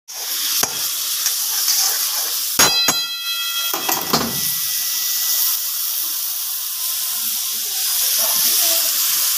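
Mutton pieces sizzling steadily in a hot karahi over a fire. A few sharp metal clanks of the ladle against the pan come between about two and a half and four seconds in, and the pan rings briefly after them.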